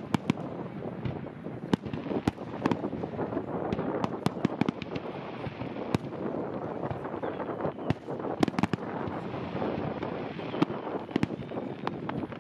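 Fireworks display in a dense barrage: irregular sharp bangs of bursting shells, several a second, over continuous crackling.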